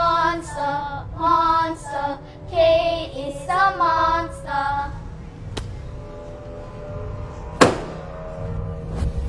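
Children's voices chanting a sing-song taunt, "Monster, monster... Kate is a monster", for about the first five seconds. About seven and a half seconds in comes a single sharp slap as a paperback book is slammed shut onto a table.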